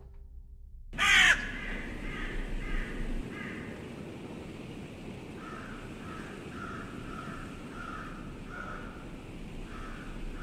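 Crows cawing: one loud harsh call about a second in, then a run of shorter caws, about two a second from the middle on, over a steady low background hiss.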